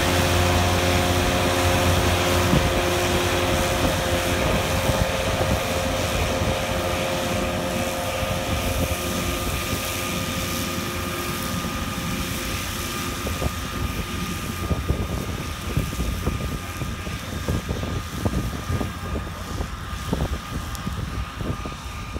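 Massey Ferguson tractor's diesel engine running steadily, with its rear-mounted disc mower cutting grass. The sound gets gradually quieter as the tractor moves away.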